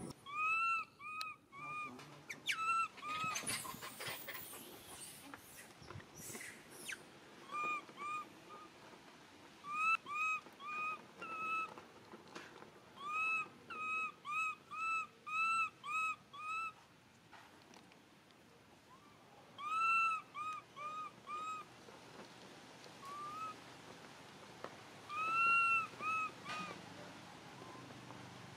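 Infant long-tailed macaque giving short, high-pitched arched coo calls in runs of two to five, with pauses between runs, typical of an infant's distress calls for its mother.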